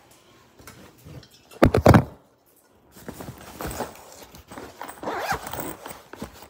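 Close handling noises: a short, loud rattling scrape about a second and a half in, then irregular rustling and scraping as an object is handled right by the phone.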